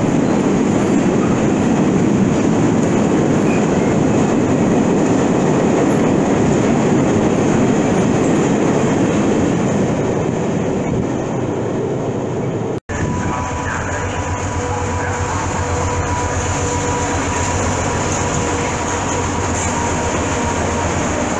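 Freight train of empty double-deck car-carrier wagons rolling past close by, the noise easing off before the middle. After an abrupt cut, a freight train of covered hopper wagons runs by further off, with a steady high whine over the rolling noise.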